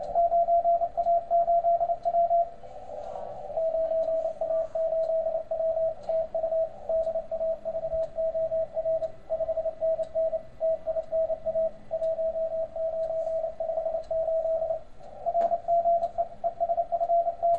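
Morse code (CW) signal on the 40-metre amateur band received through a Softrock Ensemble II software-defined radio running PowerSDR: a steady mid-pitched tone keyed on and off in dots and dashes over band hiss. The keying pauses briefly twice, leaving only the hiss.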